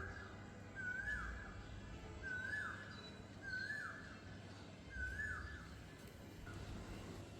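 A bird calling the same short note over and over, a brief whistle that slurs downward, repeated about every second and a half, the last call weaker. Fainter higher chirps of other birds sound now and then.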